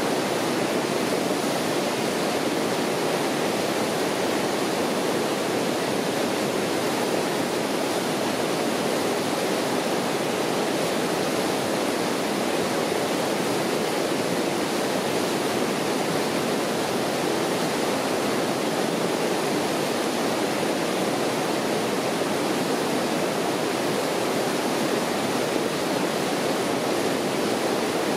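River rapids rushing steadily, white water pouring over rocks in a loud, unbroken roar.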